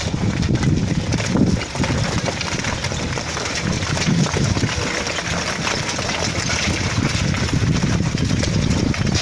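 Diesel engine of heavy construction machinery running steadily, under a loud rushing, rattling noise.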